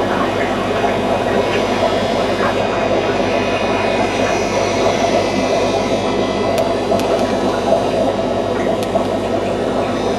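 Aquarium equipment running: a steady low hum with a constant rushing noise over it.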